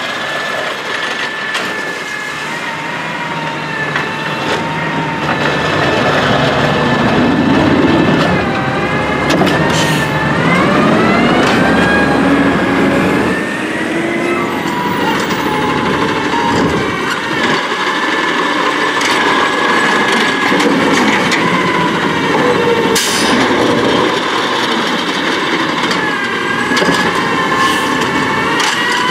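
Peterbilt 320 garbage truck with an automated side-loader body running, its engine and hydraulics giving a steady whine. About ten seconds in the engine revs up, rising in pitch as the truck pulls away. A few sharp knocks come later on.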